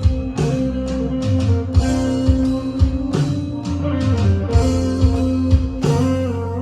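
A band playing a song: guitar over sustained bass notes, with drum hits punctuating it.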